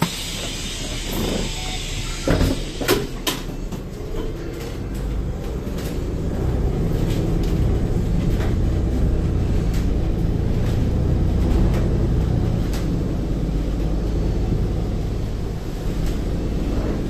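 Double-decker bus engine running, heard from inside the lower deck as the bus pulls away. There are a few knocks and clicks in the first few seconds, then the engine sound grows louder about five seconds in and stays steady.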